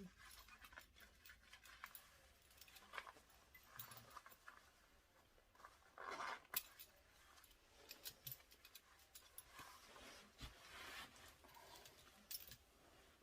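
Near silence with faint rustles and light clicks, and two soft hissing swells, one about six seconds in and one near eleven seconds.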